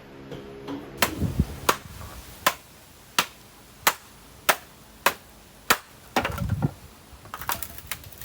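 A series of sharp knocks or taps, about one and a half a second, then a short low rumble and a few more quick knocks near the end.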